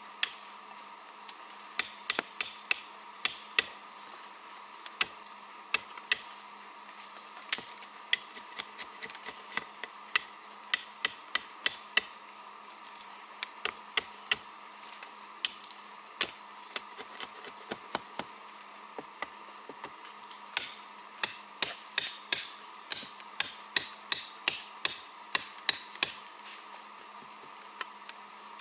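Irregular strikes of a hand tool, roughly one or two a second with short pauses, the sound of chopping or hammering, over a steady drone of jungle insects.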